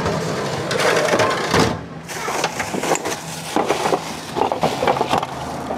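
Irregular clattering and knocking of hard parts being moved about while someone rummages for a stored scooter pulley, over a low steady hum.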